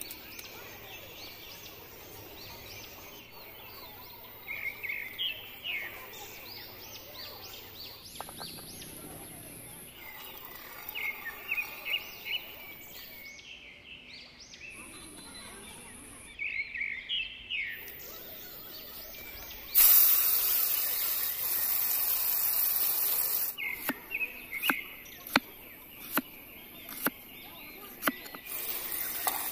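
Birds chirping in short bursts of calls, then a steady hiss for a few seconds, then a cleaver chopping onion on a wooden board in a run of sharp knocks near the end.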